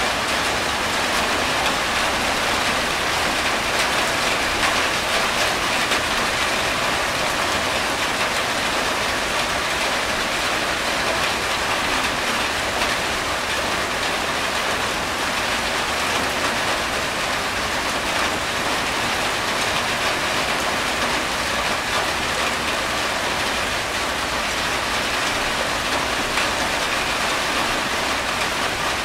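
Steady rain falling on a corrugated tin roof, with water streaming off the roof's edge.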